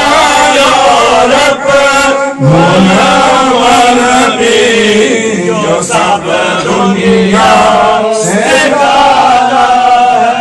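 Male voices chanting a Sufi madha, a devotional praise song, in long held phrases with a few short breaks.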